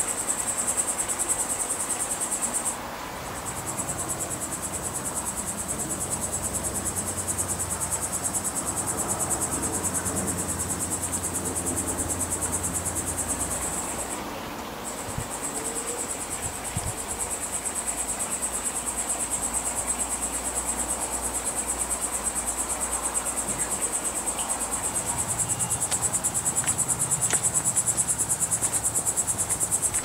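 An insect in the tree singing a steady, high-pitched, alarm-like buzzing trill made of very rapid pulses. It breaks off briefly twice: about three seconds in and about halfway through.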